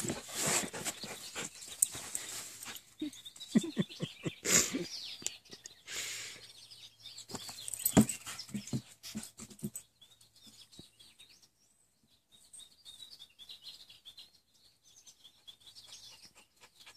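Yellow Labrador puppy panting and mouthing a rubber flying disc and ball up close, with scattered knocks of the toys. About ten seconds in it goes quiet, leaving faint bird chirps.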